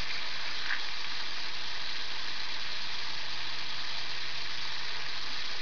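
Steady background hiss with a faint low hum, the noise floor of a home recording, with one faint click under a second in.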